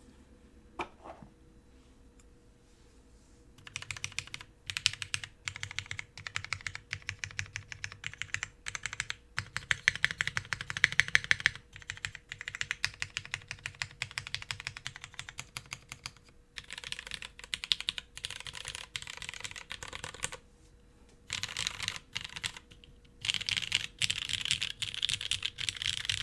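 Glare TKL mechanical keyboard with vintage Cherry MX Black linear switches, GMK Redline keycaps and a top-mounted polycarbonate half plate, being typed on fast in long runs of key clacks. The typing starts about four seconds in and breaks off briefly twice near the end. A faint steady hum sits under it.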